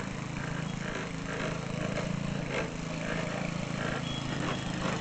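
David Bradley walk-behind tractor's small Tecumseh engine running steadily as it pulls a rider on a sulky.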